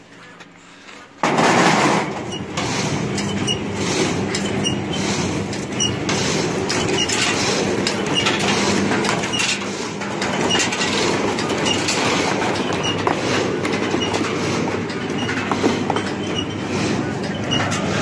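Stainless-steel date pitting machine starting about a second in and then running steadily. Its chain of moulds carries the dates under the pit-punching pins with a dense mechanical clatter and faint regular ticks.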